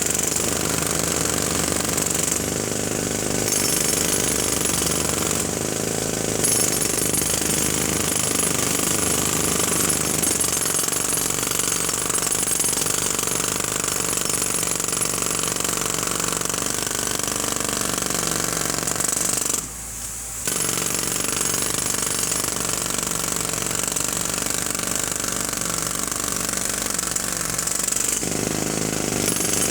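Jackhammer running continuously and loud, stopping for about a second roughly two-thirds of the way through before starting again.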